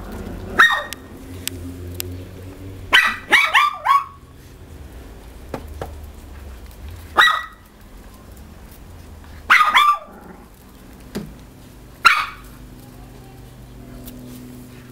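Small dogs, chihuahua-sized, yapping: short high-pitched barks, first a single one, then a quick run of four about three seconds in, then single and paired yaps every couple of seconds.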